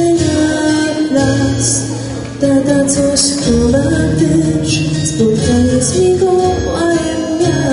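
Young female vocalist singing a song into a handheld microphone over instrumental accompaniment.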